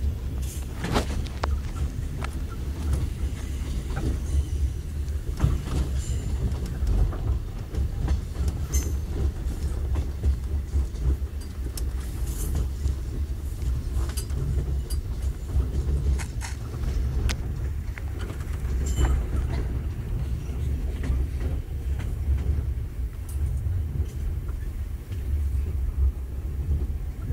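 KTM Senandung sleeper coach running at speed, heard from inside the carriage: a steady low rumble with irregular clicks and knocks from the wheels and coach body.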